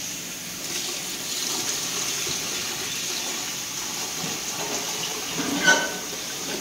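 Water poured in a steady stream from a stainless steel pot into a pot of thick masala, splashing and gurgling as it lands. A sharp metal clink sounds near the end.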